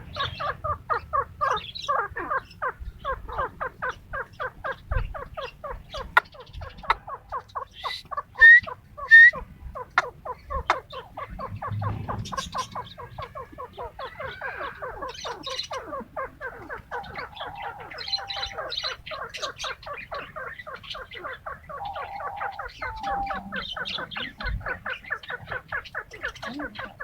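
A brood of young partridge (titar) chicks and their parents calling: a fast, unbroken run of short cheeping notes, about four or five a second, with two louder, sharp upward calls about eight and nine seconds in.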